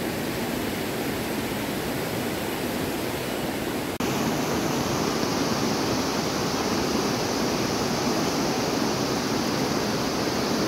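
Heavy rain falling steadily with a rushing river, heard as an even hiss of water. About four seconds in the sound changes abruptly, becoming brighter and a little louder as the rapids of the rocky river come to the fore.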